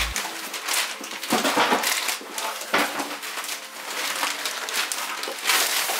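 A shipping package being opened by hand: an irregular run of rustling and tearing of the packaging, with no steady rhythm.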